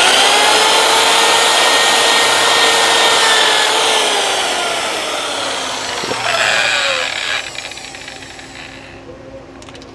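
Small electric drill with a 4 mm bit drilling out the rivets that hold a throttle body housing together. It spins up suddenly to a high whine, which sags in pitch after about four seconds, gives a second short burst about six seconds in, and then winds down.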